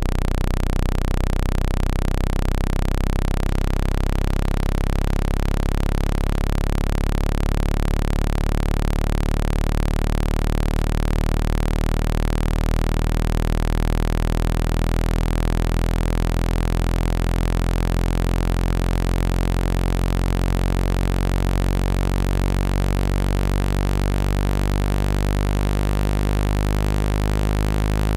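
A loud, steady, low electronic tone with many overtones, played to shake water and dust out of a phone speaker.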